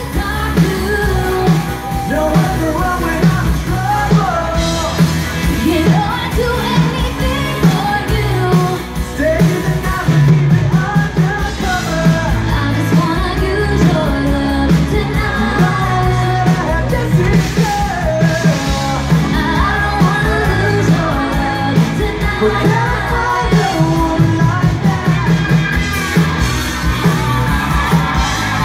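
Live rock band playing loudly: electric guitar, drums and a female lead singer.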